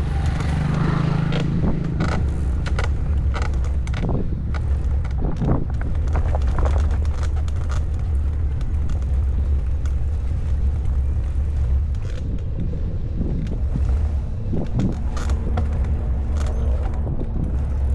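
Steady low rumble of wind and movement noise on the microphone of a moving bicycle, with scattered small clicks and knocks.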